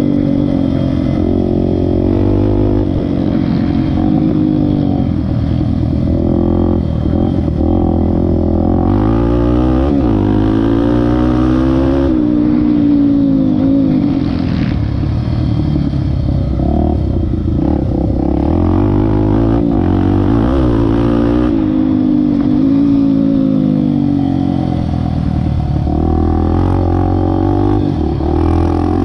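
Honda XR250 Tornado's single-cylinder four-stroke engine being ridden hard, its pitch rising and falling again and again as the throttle opens and closes and the gears change.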